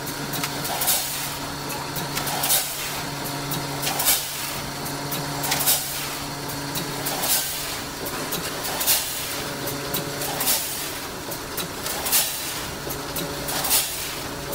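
Vertical form-fill-seal bagging machine running: a steady hum with a sharp clack about every second and a half, one for each bag sealed and cut off.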